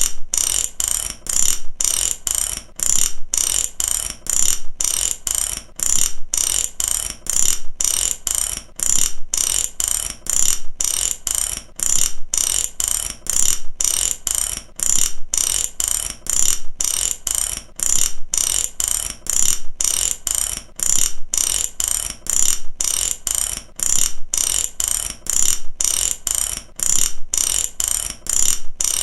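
Mechanic's ratchet wrench clicking as it is swung back and forth, a quick run of pawl clicks on each stroke, repeating evenly about three strokes every two seconds.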